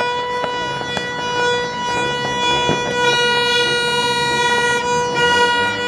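Long green plastic party horn (torotot) blown in one long steady note.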